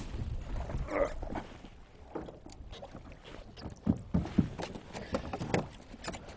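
Small boat rocking on choppy water, with waves slapping against the hull and scattered knocks and clicks from the boat and gear.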